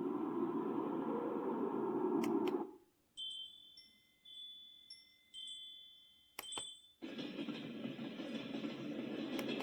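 A sunrise alarm clock's built-in nature sounds, played one after another through its small speaker. A steady rushing noise stops abruptly, a few seconds of tinkling chime tones follow, there are a couple of sharp clicks about six and a half seconds in, and then the rushing noise starts again.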